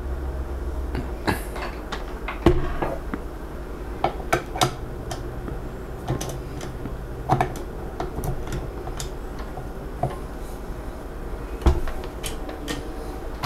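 Scattered clicks and clanks as a KitchenAid Classic Plus stand mixer is set up: the flat beater fitted onto its shaft and knocking against the stainless steel bowl, then the tilt head lowered with a sharper knock near the end.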